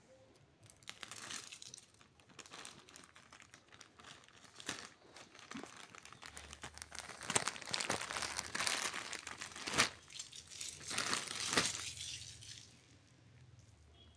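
Plastic courier mailer bag crinkling and rustling as hands handle and press it, with irregular sharp crackles, loudest in the middle and dying down near the end.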